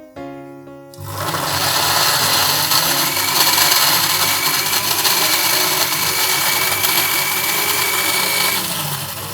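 Electric mixer grinder starting up about a second in and running, with a steady whine, as it grinds shallots, onion and dried red chillies into a chutney paste; it eases off near the end. Background music plays before it starts.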